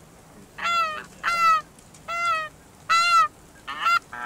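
Geese honking: five loud two-note honks, each breaking upward in pitch, coming about every three quarters of a second.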